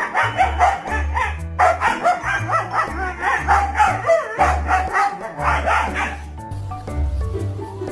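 A dog barking rapidly over background music with a steady bass line. The barking stops about six seconds in, leaving only the music.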